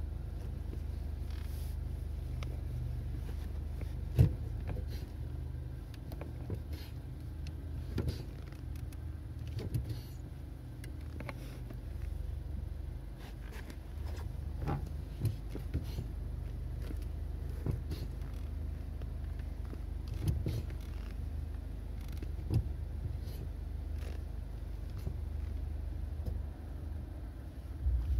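Car engine idling steadily, heard from inside the cabin, with no revving. Occasional short knocks and taps from the pedal and shoe come through, the loudest about four seconds in.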